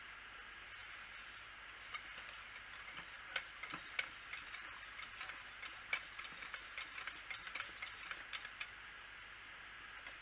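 Wire balloon whisk clicking and scraping against the sides of a slow-cooker crock as lye solution is whisked into the oils for soap: irregular taps several a second, starting about two seconds in and stopping near the end, over a faint steady hiss.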